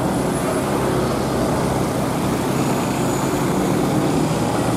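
A motor vehicle's engine running steadily, with road noise.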